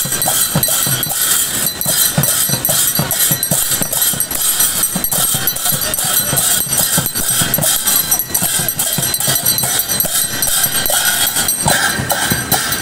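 Newar dhime drums, two-headed barrel drums, beaten in a fast, steady rhythm with the bright clashing of hand cymbals over them.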